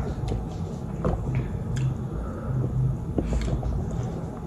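Close-up chewing of ramen noodles, with scattered short wet clicks and smacks from the mouth.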